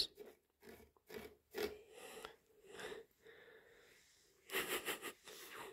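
Kitten sniffing at a sisal scratching post: faint scattered sniffs, then a quick run of about four sniffs about four and a half seconds in.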